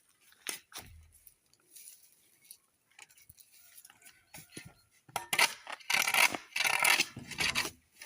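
Soil and grit being scraped across a concrete surface, with a few scattered clicks first and then a dense run of rough, rasping scrapes in the second half.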